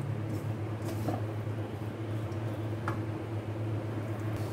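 Silicone spatula stirring and scraping a dry chicken-and-vegetable filling in a nonstick wok, with a few faint ticks, over a steady low hum.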